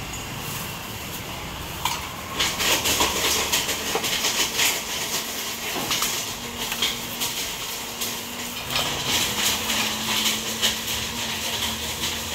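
Rapid crackling rustle and light clatter as a vendor handles thin plastic bags and utensils at a food stall, over a steady low hum from about halfway.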